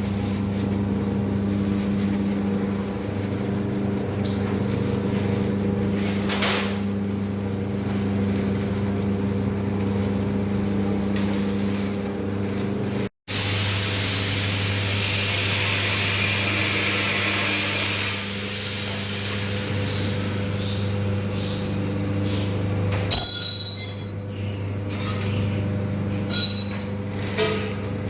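Bread-crumb flour drying machine running with a steady motor hum. A high hiss rises for a few seconds midway, and a few sharp metallic clinks come near the end.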